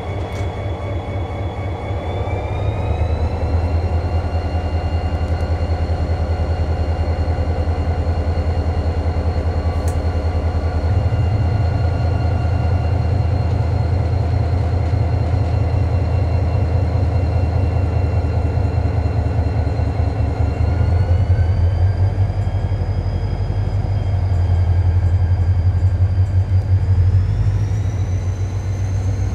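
Diesel-electric locomotive's engine running with a heavy pulsing rumble and a steady whine, the pitch rising about two seconds in and again twice near the end as it powers up and the passenger train pulls away from the station.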